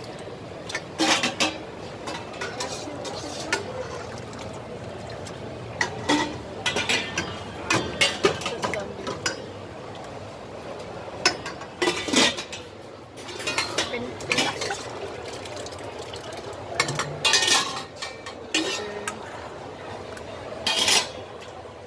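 A metal ladle clinking and scraping against stainless-steel pots and plastic tubs as desserts are scooped and stirred. Sharp clinks come every second or two over steady background chatter.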